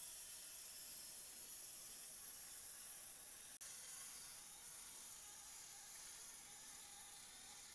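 Faint steady background hiss, strongest in the highs, with no distinct event in it. A momentary dropout comes about three and a half seconds in.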